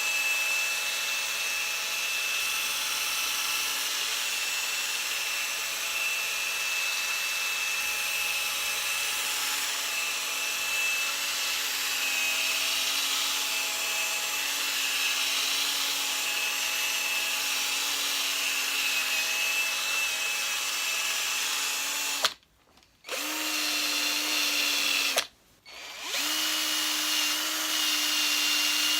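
Electric rotary polishing machine running steadily as it buffs plastic with cutting compound. Near the end it stops twice, briefly each time, and starts up again running slightly higher in pitch.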